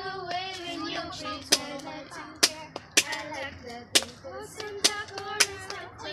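Young female voices singing a held melody, with sharp claps or knocks falling every half second to a second.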